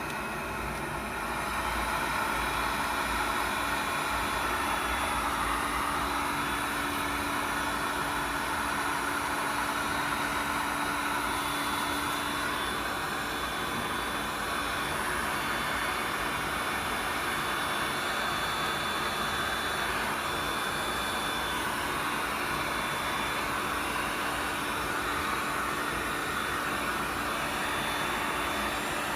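2000 W electric heat gun running: a steady rush of blown air with a faint motor hum and whine, getting louder about two seconds in and then holding steady.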